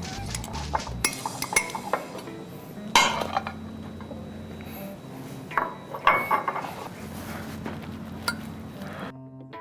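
Plates and cutlery clinking and knocking as a dish is handled and served, with louder clanks about three and six seconds in.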